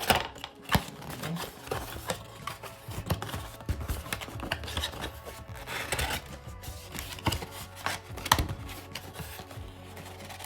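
A cardboard trading-card box being opened by hand: rubbing and scraping of the cardboard with many scattered sharp clicks, the loudest near the start.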